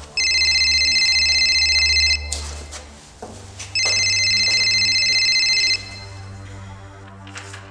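Telephone ringing twice, each ring a high trilling tone lasting about two seconds with a pause of about a second and a half between them, over a low droning music bed.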